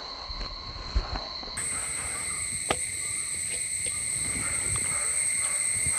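Insects, crickets or cicadas, buzzing in steady high tones, with two short knocks, one about a second in and a sharper one near three seconds.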